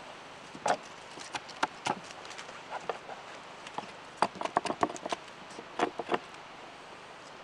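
A blade striking a green branch in short, light blows, knocking off side twigs: about a dozen sharp knocks at uneven intervals, with a quick run of several about four seconds in.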